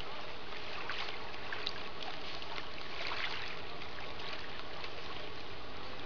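Small lake waves lapping at the shore: a steady wash of water with a few faint clicks.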